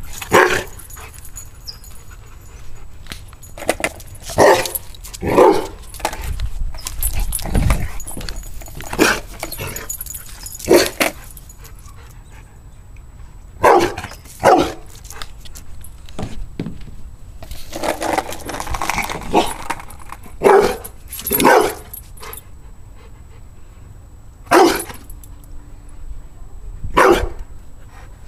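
Rottweiler barking at a skateboard: single loud barks at irregular intervals, about a dozen over the half minute, some coming in quick pairs.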